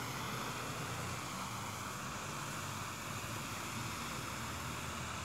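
Steady rushing outdoor background noise with no distinct calls or knocks.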